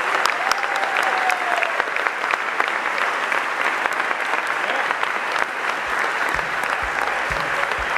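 Large audience applauding steadily after a winner is announced, with a rising-and-falling whoop in about the first two seconds.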